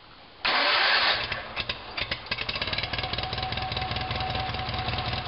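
Sears SS/16 garden tractor's 16 hp single-cylinder engine cold-started: it catches about half a second in, loudest for the first moment, then settles into steady running.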